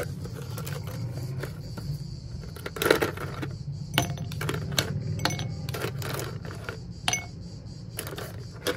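Ice cubes dropped one by one into an empty glass mixing glass, each landing with a separate clink or knock against the glass.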